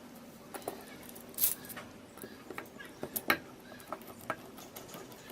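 Irregular sharp clicks and clinks of small hard objects being handled, about half a dozen, the loudest about a second and a half in and just past the middle, over a faint steady low hum.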